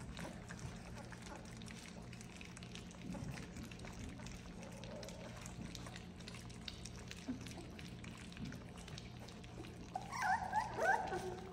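Golden retriever puppies lapping and slurping soft food from a shared dish, with faint wet smacking clicks. About ten seconds in, one puppy gives a short, high, wavering whine.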